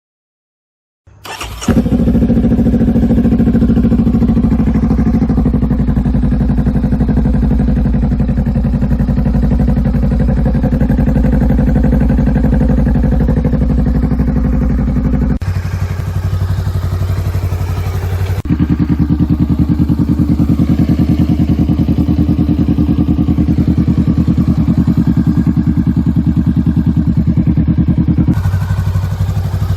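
2017 Honda Rebel 500's parallel-twin engine catching about a second in, then idling steadily through its exhaust. The tone of the idle changes abruptly three times, at about 15, 18 and 28 seconds in.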